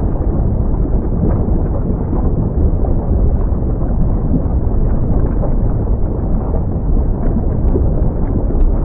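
Mount Semeru erupting: a loud, steady, deep rumble with a few faint crackles.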